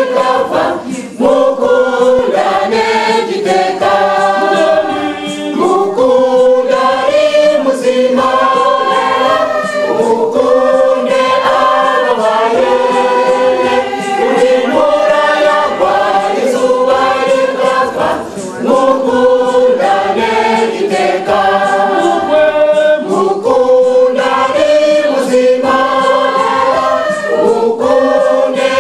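Mixed choir of men's and women's voices singing a hymn in several-part harmony, with short breaks between phrases.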